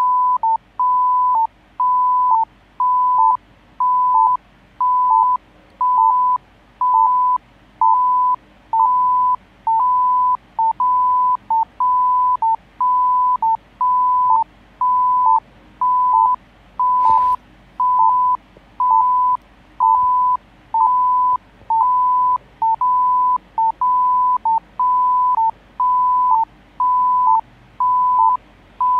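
Pulse oximeter on a patient monitor sounding its pulse beep with each heartbeat, a tone of steady pitch about once a second, each beep about half a second long. The beat follows the patient's junctional rhythm. A single click is heard about seventeen seconds in.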